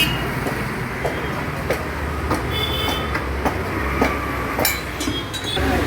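Irregular metallic knocks and clicks from hand work on a motorcycle wheel, over a steady low rumble, with a brief metallic ring about halfway through.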